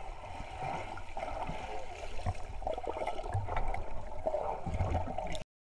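Muffled underwater sound in a swimming pool: water sloshing and bubbling, with scattered low thumps from moving bodies. It cuts off abruptly near the end.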